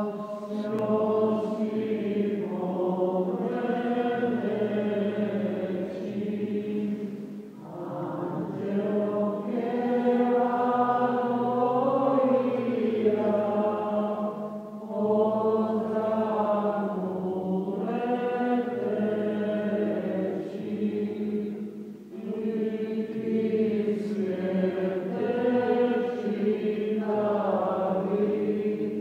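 Voices singing a slow church chant or hymn in long phrases of about seven seconds each, with short breaks between them.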